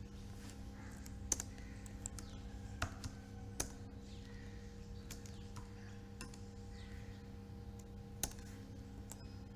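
Computer keyboard keystrokes, a few separate clicks spread out rather than a fast run, over a steady low electrical hum.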